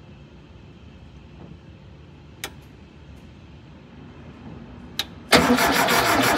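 Two sharp clicks, then about five seconds in a VW Thing's air-cooled flat-four engine suddenly cranks over on its starter, loud and rhythmic.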